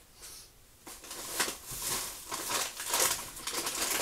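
Plastic packaging crinkling and rustling in irregular bursts as groceries are pulled out of a delivery box, starting about a second in and getting busier toward the end.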